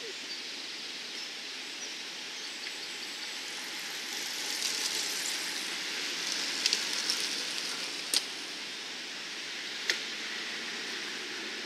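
A group of road bicycles riding past close by on a climb: the hiss of their tyres on the asphalt swells as the bunch goes by, with a few sharp clicks.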